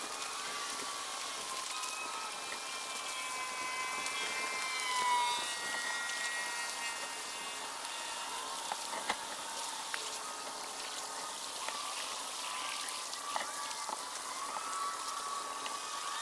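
Ditch water rushing through a breach in a beaver dam, with a few sharp knocks as a pole rakes at the sticks. A faint wavering high tone slowly glides up and down in pitch over the water.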